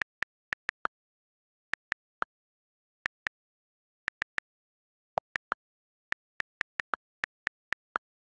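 iPad on-screen keyboard key clicks as a phrase is typed: about 25 short, crisp ticks in uneven bursts of two to five, in total silence between them, with a few clicks lower in pitch than the rest.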